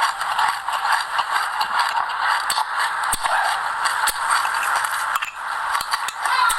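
Close-miked chewing of a mouthful of sesame seeds with passion fruit: a dense, continuous wet crackle with scattered sharp clicks.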